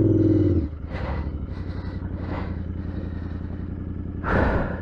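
Royal Enfield Interceptor 650's parallel-twin engine held at raised revs, dropping back to a steady idle about half a second in. A short rush of noise near the end.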